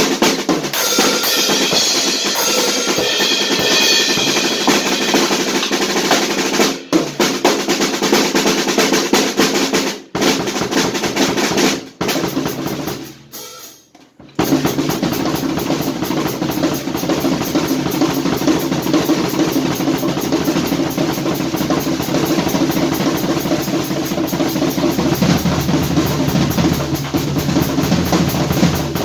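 Acoustic drum kit played fast and busily: snare, bass drum and cymbals, with rolls. The playing breaks off briefly a few times in the first half, then runs on without a break from about fourteen seconds in.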